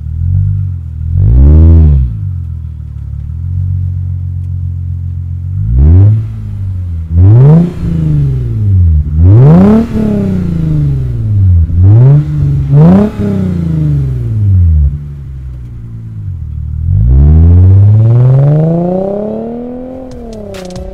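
Lexus IS350's 3.5-litre V6 through an ARK GRiP cat-back exhaust with resonated tips, idling and being free-revved while parked: a short blip early, a run of quick revs in the middle, and one long rev near the end that falls back toward idle.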